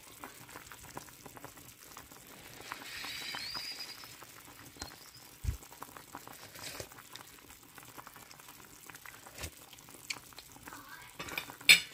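Chicken soup boiling in an open enameled cast-iron pot: a steady light bubbling with many small scattered pops. A single sharp clink comes near the end.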